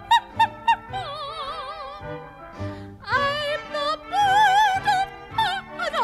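Operatic singing in a high voice with a wide, fast vibrato, in short phrases over an accompaniment.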